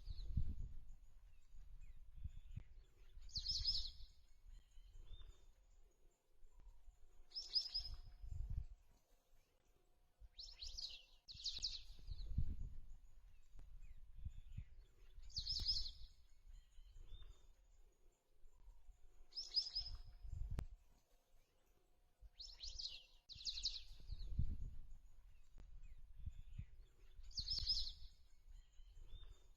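A bird calling over and over, one short high call about every four seconds, sometimes two in quick succession. Underneath is a low, gusty rumble, typical of wind on the microphone.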